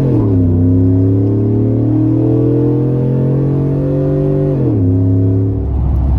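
A 2012 Chevrolet Silverado's 5.3 L LS V8 running on E85, heard from inside the cab as the truck accelerates. The engine's pitch drops as it shifts up right at the start, climbs slowly, then drops again with another upshift near the end.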